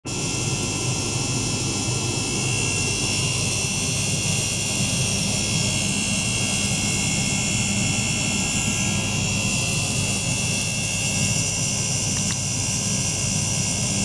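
Small liquid-circulation pump running steadily and pushing water through a plastic tank: a constant hum with steady high whining tones above it.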